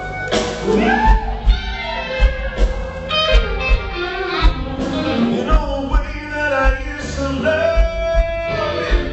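Live blues band: an electric guitar plays lead with bent, wavering notes over bass and a kick drum.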